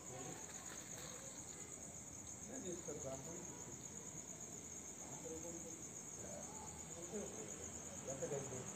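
Steady high-pitched insect chirring, a continuous finely pulsing trill, with faint voices now and then underneath.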